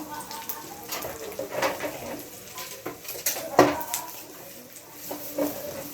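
Irregular clinks and knocks of dishes and containers being handled and set down, the loudest knock about three and a half seconds in.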